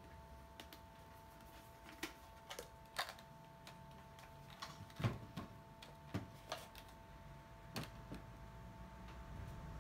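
Scattered sharp plastic clicks and knocks as the dust case and filter are pulled off a Makita cordless handheld vacuum and handled, the loudest knock about five seconds in. A faint steady hum underneath.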